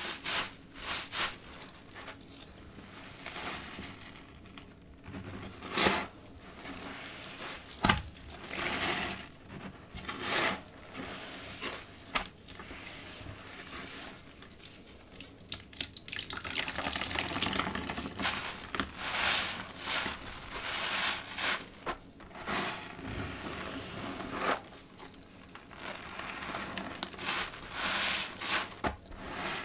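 Soaked kitchen sponges squeezed and kneaded by gloved hands in a basin of foamy green liquid soap: irregular wet squelches and foam crackles, with a couple of louder, sharper squelches in the first third.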